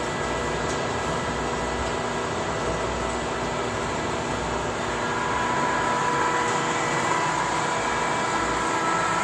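Industrial ribbon blender running steadily, its motor and drive giving a constant mechanical hum with a steady whine that grows a little stronger about halfway through.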